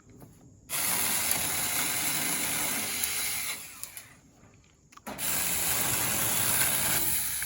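Saker 6-inch 20 V battery mini chainsaw running in two bursts of about three and two seconds, its chain cutting hard dry wood, each burst trailing off as it winds down.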